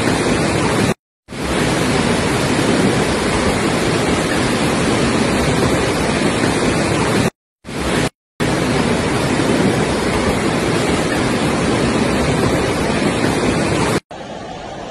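Torrential floodwater rushing down a street: a loud, steady rushing noise with no distinct events. It cuts out briefly about a second in and twice around eight seconds in, then continues as a quieter rush near the end.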